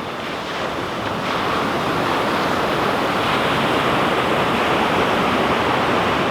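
Ocean surf breaking and washing up the beach: a steady rush that grows a little louder after the first second.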